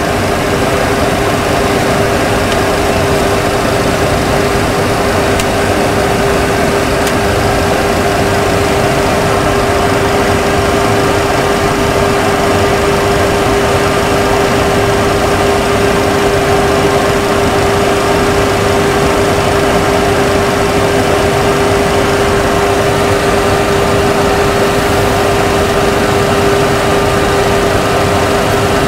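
Steady, unchanging Boeing 737 Classic flight-deck noise during descent: a constant rush of air and machinery noise with one held hum running through it.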